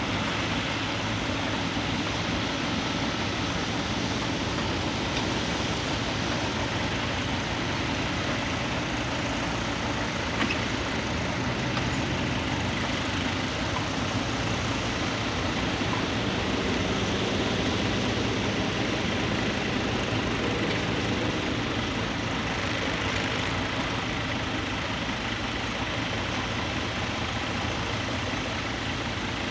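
Small farm tractor's engine running steadily as it pulls a two-bottom mouldboard plough, with one faint click about ten seconds in.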